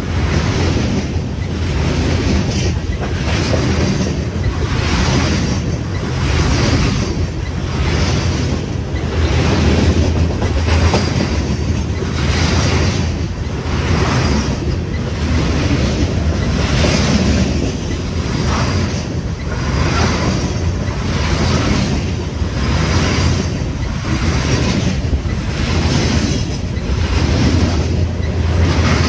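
Freight train of open-top hopper cars passing close by at speed: steady rumble of wheels on rail with a regular pulse about once a second as each car and its wheel trucks go by.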